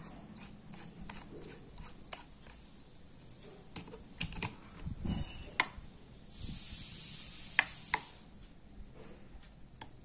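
Scattered small plastic clicks and taps as a plug-in bulb holder is handled and plugged into a switchboard, with a dull knock about halfway through, then sharper switch clicks as the board's switch is flicked on and later off.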